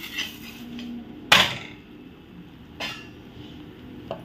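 A metal spatula clanks against a flat griddle (tawa) while a puran poli is flipped: one sharp, ringing clank about a second in, a softer one near three seconds, and a faint tap just before the end.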